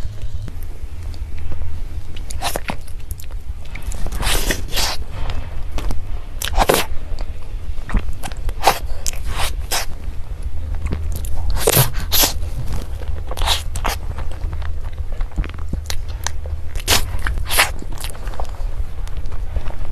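Close-miked eating of soft cake: chewing and wet mouth clicks and smacks, coming in small clusters every second or two.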